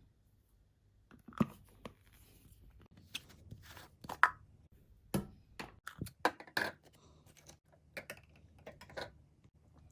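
Small hard plastic breast-pump parts and their plastic wrapping being handled. It comes as scattered clicks, taps and crinkles, with a sharper knock about four seconds in.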